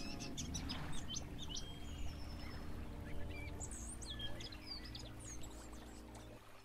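A song played backwards: sustained low chords with short, high bird-like chirps scattered over them, fading out near the end.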